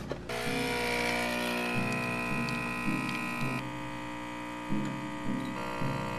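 Capsule espresso machine's pump buzzing steadily as it brews coffee into a cup. The buzz starts just after a capsule is loaded and its higher tones thin out a little past halfway.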